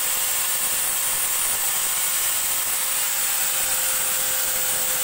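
A power tool running continuously: an even whirring noise with a steady hum that does not change.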